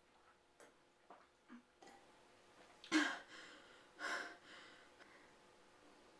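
Mouth sounds of a person drinking from a glass: faint clicks, then two loud, noisy breaths about a second apart.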